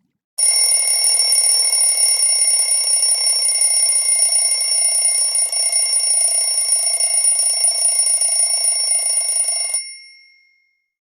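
A built-in Wiko Sunny 2 phone tone playing for about nine seconds: a steady electronic sound with several held high pitches over a hissing layer. It starts about half a second in and fades out near the end.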